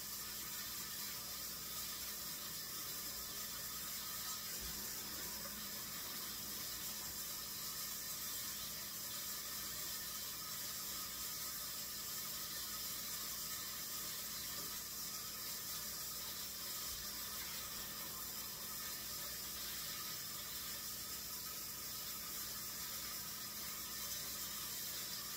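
Kitchen tap running steadily into the sink while raw chicken legs are rinsed under the water.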